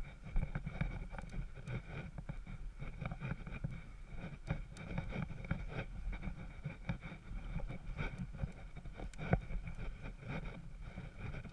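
Low rumble and frequent knocks and rattles from a vehicle-mounted camera jolting over a bumpy dirt trail, with wind on the microphone.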